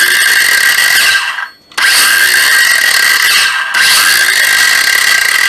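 National EZT501 12 V cordless circular saw spinning its 135 mm blade free at full speed, a loud steady high whine. It cuts out about a second and a half in, the blade stopping quickly on its brake, and is triggered again, with a short dip near the middle; the saw runs strongly.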